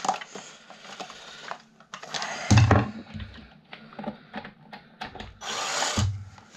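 Plastic desk-fan housing being prised apart with a screwdriver: scrapes, clicks and knocks, with a heavier knock about two and a half seconds in and a longer scrape near the end.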